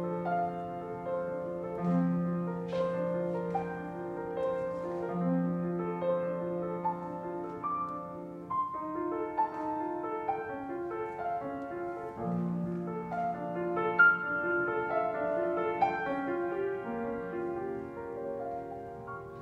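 Grand piano played solo: long-held low notes under a moving melody line, the playing growing softer over the last few seconds.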